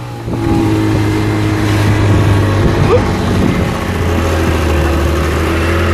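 Speedboat engine running steadily at speed while towing a banana boat, with wind and water rushing past. Its low tone drops about four seconds in.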